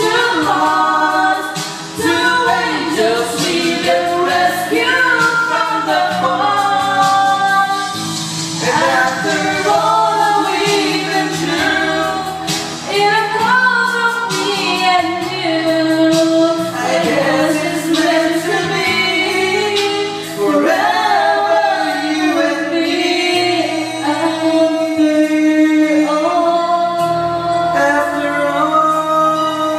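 A woman and a man singing a duet into handheld microphones over an amplified karaoke backing track.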